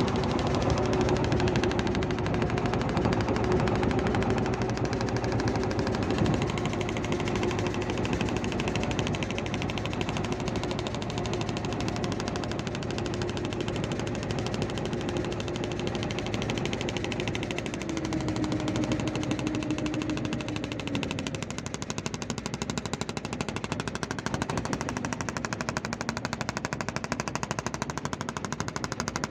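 Fishing boat's inboard engine running under way, a loud, rapid, even beat of exhaust strokes. Its note dips and eases slightly about twenty seconds in.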